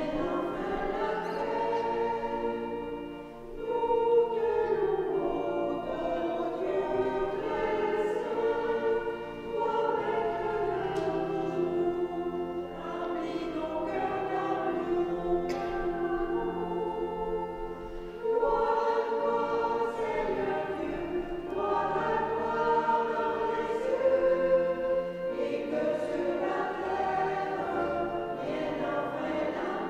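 A small choir of a few voices singing together in sustained phrases, with brief breaks between phrases.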